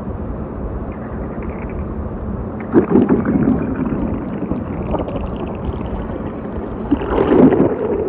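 Hungry stomach growling: two low, gurgling rumbles, one about three seconds in and a louder one near the end, over a steady background hiss.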